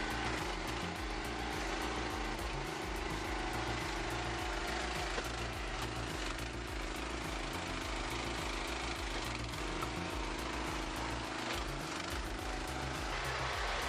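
Engine of a log-splitting machine running steadily at constant speed, with a low rumble and a steady hum.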